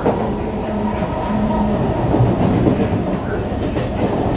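Kawasaki Heavy Industries C151 metro train running at speed, heard from inside the car: a steady rumble of wheels on the rails with a steady traction-motor tone.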